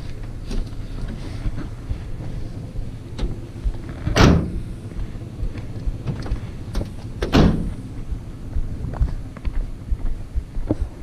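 Cargo van doors being shut: two heavy slams about three seconds apart, with lighter knocks and handling noise between.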